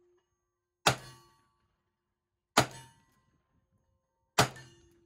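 Three revolver shots from an 1851 Navy Richard Mason conversion in .38 Special, about a second and three quarters apart, each with a short echoing tail. After the first and last shot a brief ringing tone follows, typical of a bullet striking a steel target.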